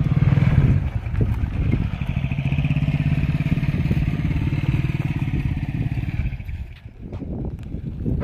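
An engine running steadily at an even speed, then dropping away about six and a half seconds in.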